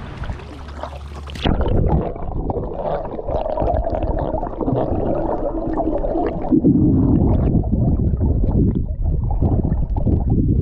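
Open-air kayak paddling and wind, then the action camera plunges underwater about a second and a half in. The sound turns muffled, with the highs cut off, and becomes a dense gurgling churn of water moving around the submerged camera housing as the kayak is paddled along.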